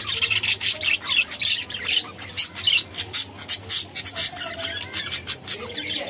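Caged budgerigars chattering: a fast, dense run of short, sharp chirps and squawks.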